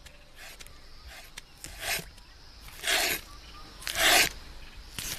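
A bottle gourd being shaved into thin slices with a hand-held planing tool: a run of rasping scraping strokes, about one a second, louder from about two seconds in.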